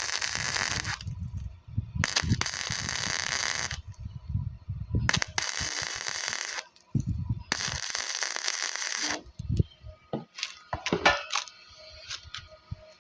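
Flux-core wire welder arc crackling and sputtering in four short bursts of a second or two each, laying fill-in weld into a gap on a steel pole. After that come several sharp metallic clinks and knocks on the steel.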